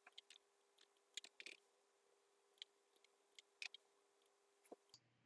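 Faint computer mouse and keyboard clicks, a dozen or so at irregular intervals.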